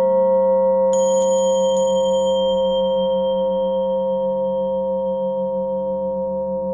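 Tibetan singing bowl ringing on after a strike, a full, layered tone with a slow pulsing beat, gradually fading. About a second in, a small high-pitched metal chime is struck a few times in quick succession, its bright ring dying away within about two seconds.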